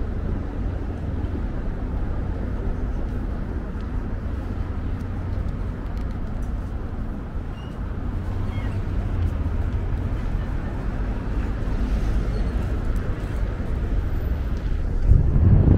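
Busy city street ambience: a steady low rumble of road traffic, swelling briefly louder near the end.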